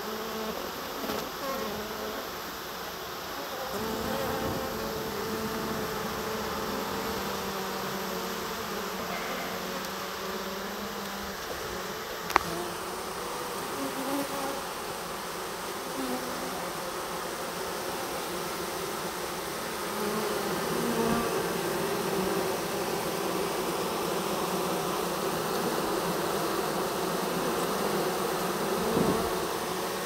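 A dense mass of honey bees buzzing steadily at close range inside a hive box: a newly caught after-swarm. One sharp click about twelve seconds in.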